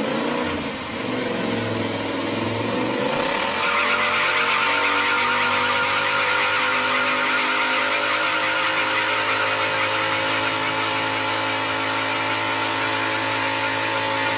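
A vehicle engine running, its pitch shifting up and down for the first few seconds, then held at a steady, higher-pitched drone for the rest.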